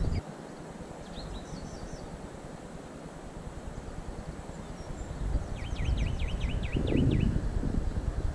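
Low rumble of wind on the microphone, growing louder in the second half, with a small bird calling: a couple of chirps about a second in, then a quick run of short falling chirps near the end.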